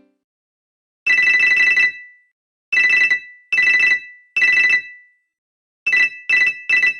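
Panasonic G60 mobile phone ringtone: a high electronic warbling trill that rings in four bursts, then three shorter bursts in quick succession near the end.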